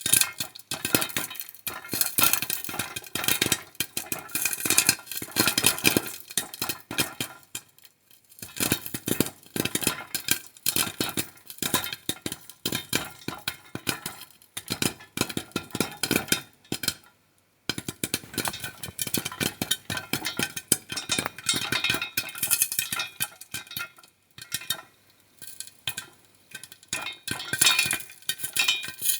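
Popcorn popping in a pan: dense, rapid pops of kernels bursting and hitting the pan, with one brief break a little past halfway.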